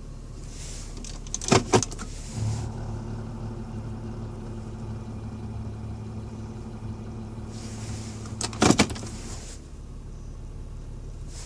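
Grinding drone from a 2007 Volvo S80 3.2: a steady low hum with overtones comes in just after a pair of sharp clicks about two seconds in and stops with another pair of clicks near nine seconds. The owner traces the noise to behind the glovebox on the passenger side. It occurs in park, in reverse and when coasting, but not in drive or when accelerating.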